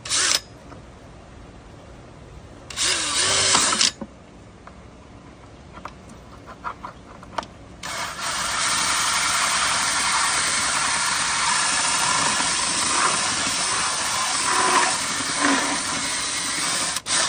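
Power drill turning a 51 mm hole saw through a golf cart's plastic dash panel: two short bursts of drilling, then a long steady cut from about eight seconds in until just before the end.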